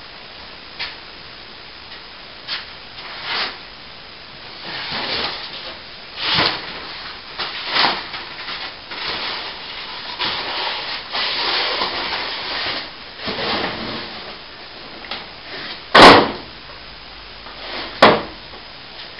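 Fallen plasterboard debris being handled, with irregular scraping and rubbing, then two sharp, loud knocks about two seconds apart near the end.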